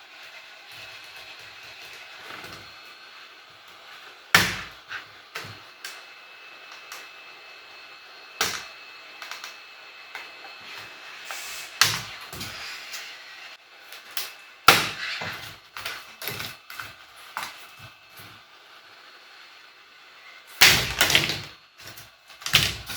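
Plastic laptop parts being handled and pressed together: scattered clicks and knocks, a few sharper ones about 4, 8, 12 and 15 seconds in and a cluster of rattling knocks near the end.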